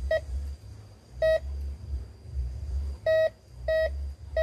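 Metal detector beeping in short repeated tones, about five times (one longer beep a little past three seconds), as it passes over a buried metal target. A low rumbling noise runs underneath.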